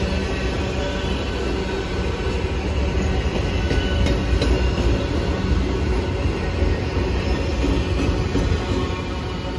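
Enclosed autorack freight cars rolling past at track side: a steady rumble and clatter of steel wheels on rail, with thin, steady high squealing tones above it.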